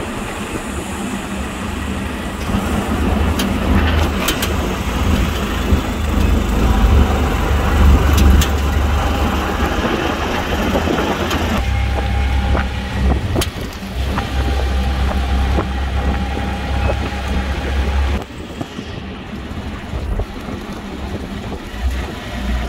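Ride in an open auto-rickshaw: its small engine running under a heavy low rumble of wind buffeting the microphone, with road and traffic noise around. The rumble drops off about eighteen seconds in.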